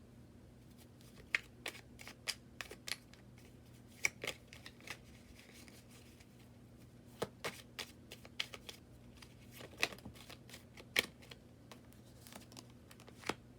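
Tarot cards being shuffled and handled: irregular clusters of sharp card snaps and taps, over a faint steady low hum.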